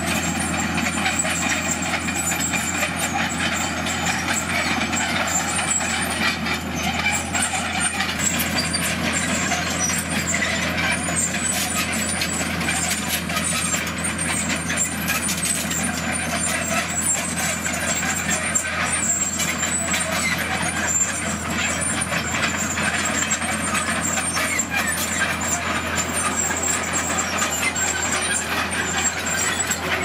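Komatsu D41PX crawler bulldozer's diesel engine running steadily under load as it pushes rock, with a continuous clatter from its steel tracks and the stone.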